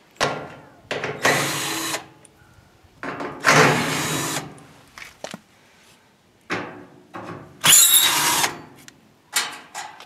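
Cordless drill run in short bursts, unfastening parts of a washing machine's cabinet as it is dismantled. There are three longer runs of under a second each, with brief blips of the trigger between them.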